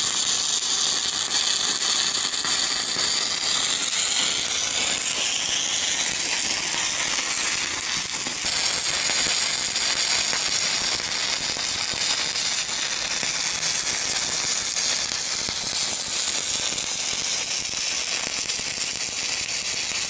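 Stick-welding arc from a 1/8-inch 7018 electrode at about 115 amps, burning steadily with a continuous hiss as a fill pass is laid on thick-walled 2-inch schedule 160 pipe.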